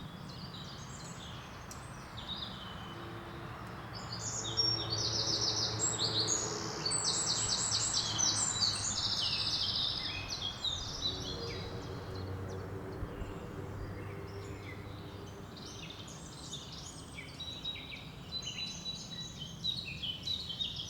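River water running over small rapids, a steady rush, with small woodland birds chirping and singing over it. A burst of rapid trilling song from about four to ten seconds in is the loudest part, with scattered chirps before and after.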